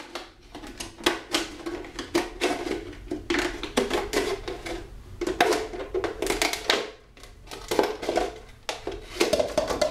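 Scissors cutting around a 2-liter PET soda bottle: quick runs of sharp snips as the blades close, with the thin plastic wall crinkling and crackling as the bottle is turned.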